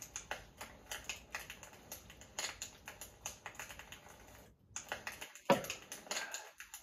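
Light, irregular clicks and taps at close range, with one sharper knock about five and a half seconds in.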